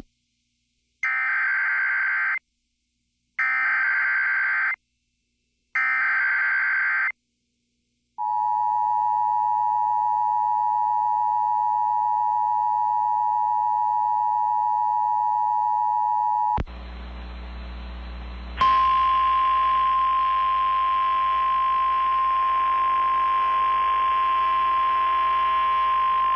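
Emergency Alert System signal: three short screeching bursts of SAME digital header data, then the two-tone attention signal held for about eight seconds. After a couple of seconds of radio hum and static comes NOAA Weather Radio's single-pitch warning alarm tone over static, which cuts off near the end, just before a severe thunderstorm watch is read.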